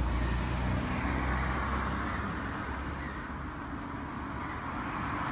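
Road traffic: a passing vehicle's tyre and engine noise swells and fades over a steady low rumble, then builds again near the end.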